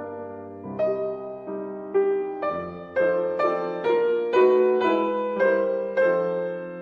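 Gentle piano music: single notes and chords struck about once or twice a second, each fading before the next, with the notes coming faster after about three seconds.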